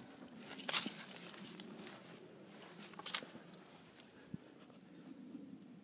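Faint rustling and a few soft clicks and knocks from someone moving about on grass scattered with dry leaves, with handling noise on the microphone.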